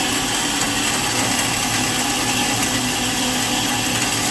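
Spartan S330/2 metal-cutting miter bandsaw running steadily, its blade cutting through a 1-inch workpiece under semi-automatic feed. A constant whirring noise with steady hum tones.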